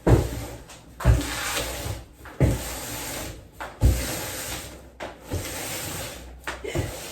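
A run of dull thumps, about one every second and a half, with rubbing and scraping between them, as a large cardboard delivery box is handled and moved.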